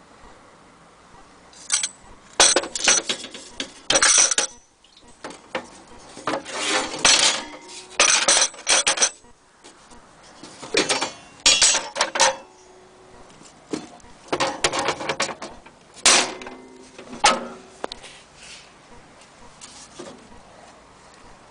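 Metal parts of an old military stove being handled: clanking, clinking and scraping in irregular bursts, with short quiet gaps between them.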